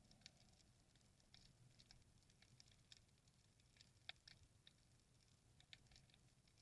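Near silence underwater: faint, irregular clicks and crackles, a few a second, with a slightly stronger click about four seconds in, over a faint low rumble.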